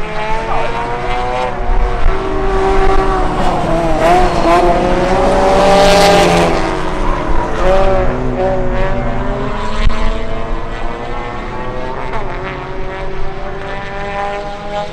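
Several race cars' engines revving through a run of corners. Their notes overlap and dip and rise as the cars slow and accelerate, loudest about six seconds in.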